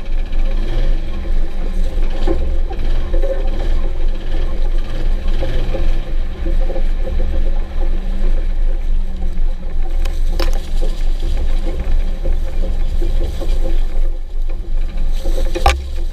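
A Jeep Wrangler TJ's 4.0 straight-six running under way, a low, uneven rumble. There are two sharp clacks, about ten seconds in and near the end. The owner says the engine knocks but can't tell whether the knock is from the engine or the transmission.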